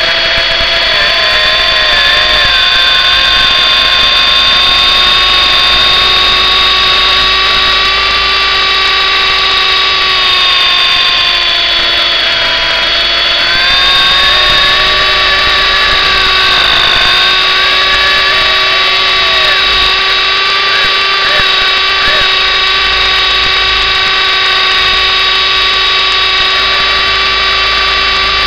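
Electric motors and rotor of an MJX F45 RC helicopter running in flight, a loud, steady high whine heard close up from a camera on board. The pitch dips briefly a little under halfway through as the throttle eases, then climbs back, with a second tone wavering up and down throughout.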